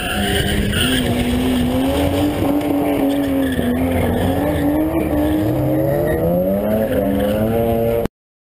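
BMW Z3 roadster's engine revving up and down through a drift, with tyre squeal, heard from inside the open car; the revs climb near the end before the sound cuts off suddenly.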